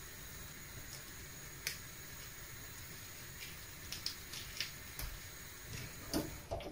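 Quiet kitchen handling: a handful of light clicks and taps, most of them in the second half, as a pancake is rolled up on a wooden board, over a faint steady hiss.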